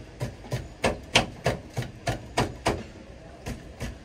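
Knife chopping red chillies small on a wooden chopping board: steady knocks about three a second, with a short pause about three seconds in.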